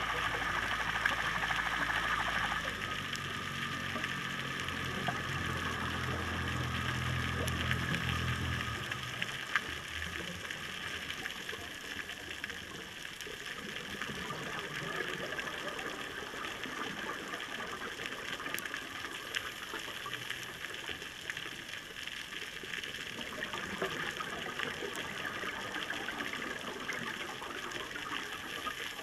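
Underwater ambience picked up by a camera in its housing: a steady watery hiss sprinkled with faint clicks. A low rumble lasts for roughly the first eight seconds, then stops.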